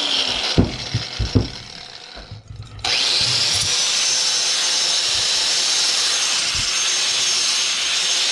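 Loud electric power tool cutting through stubborn parts. It stops after a few knocks about two seconds in, then starts again and runs steadily.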